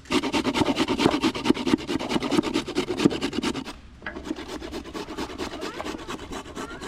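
Rapid, rhythmic scraping strokes, several a second, loud at first; they break off briefly a little past the middle and then go on more quietly.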